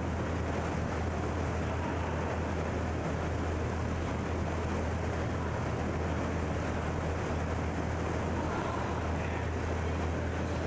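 Steady low hum with an even hiss behind it, the room tone of an indoor rink, with no clear single events.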